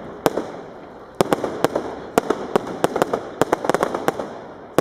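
Aerial fireworks bursting: one sharp bang just after the start, then from about a second in a rapid run of bangs, several a second, each followed by an echoing tail.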